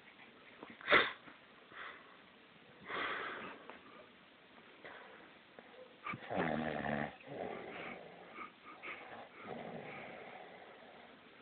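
A man snoring in his sleep: irregular noisy breaths, with one loud buzzing snore about six seconds in and softer snores after it. A short sharp sound about a second in is the loudest moment.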